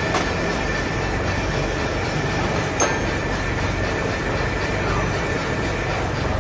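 Steady running noise of machine-shop machinery, dense and even with a few faint steady tones. About three seconds in there is a single sharp metallic click.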